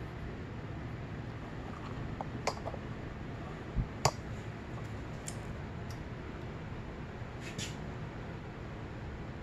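Light clicks and taps of a hand tool and small parts on the CRF250R's aluminium cylinder head while valve spring cotters are fitted, with a sharper click and a low thump about four seconds in, over steady low background noise.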